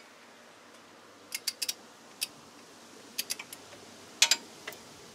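Light metallic clicks and clinks of a socket wrench being fitted and worked on a brake caliper's bolts: about a dozen sharp, irregularly spaced ticks, some in quick pairs or triplets.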